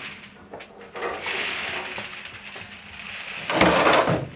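Concrete mixer converted to a peanut roaster, its drum turning with a low rattling hiss and a few knocks. Near the end a much louder rattling rush starts as the drum is tipped and the roasted peanuts begin to pour out.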